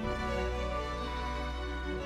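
Slow, sad background music of sustained instrumental chords over a held low bass note.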